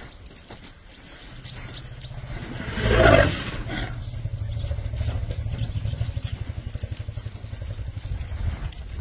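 An elephant gives one loud call about three seconds in, over a steady low rumble.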